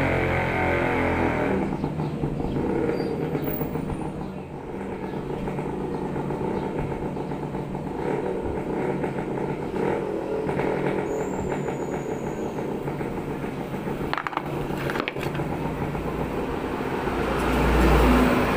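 Road traffic going by outside: motor vehicles running and passing, with one louder low rumble swelling near the end.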